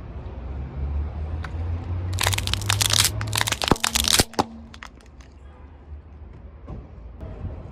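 Car tyre rolling onto and crushing a brittle object: a dense run of cracking and crunching lasting about two seconds, over the low running of the car's engine, which then fades. A few scattered snaps follow.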